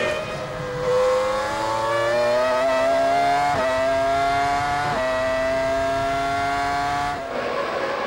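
Onboard sound of a 2000 Formula One car's 3.0-litre V10 at full throttle: a high engine note that climbs slowly and steadily, with two brief breaks in it. Near the end it cuts off and gives way to more distant, unpitched track noise.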